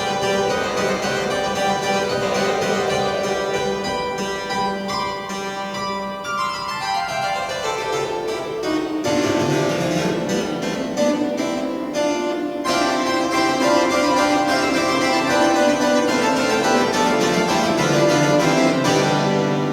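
Pipe organ playing densely layered held chords, with a long run of notes descending through the bass about halfway through.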